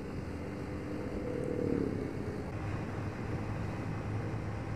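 A Yamaha Vixion R 155 VVA's single-cylinder engine running under way, heard from the riding motorcycle. The engine note swells briefly between one and two seconds in, then holds steady.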